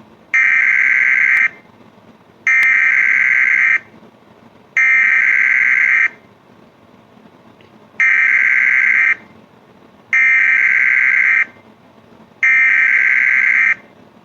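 Loud electronic emergency-alert alarm tone: six harsh, buzzing beeps, each a little over a second long, sounding in two groups of three with a longer pause between the groups.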